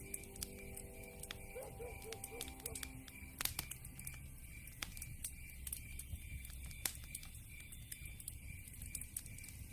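Wood fire crackling in a fireplace: irregular sharp pops and snaps over a low rumble of burning logs, with a louder pop about three and a half seconds in.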